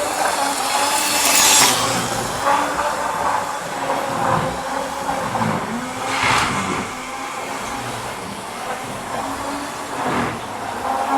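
An old OO gauge Class 31 model diesel locomotive running at speed on its track: a steady motor whir and wheel rattle that swells three times, a few seconds apart.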